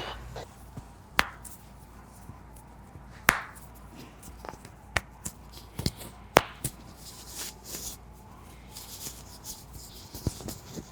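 Scattered sharp clicks and taps from hands-on chiropractic work on a patient, with a few louder cracks standing out among fainter ones.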